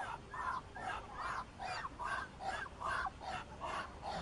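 Domestic waterfowl calling: a steady run of short, harsh calls, about two or three a second, some overlapping.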